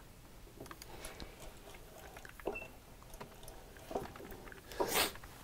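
Faint handling noises: a few light clicks and taps as a steel chisel is positioned under a microscope on a wooden workbench, with a short hiss near the end.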